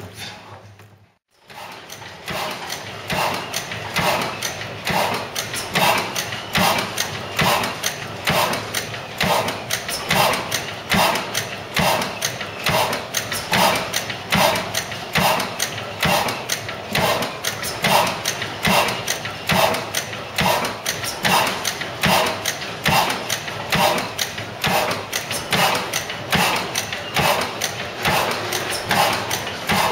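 Vintage National stationary gas engine running, its valve gear and governor clattering in a fast, even rhythm of clicks with a slower repeating beat. The sound cuts out briefly about a second in, then picks up again.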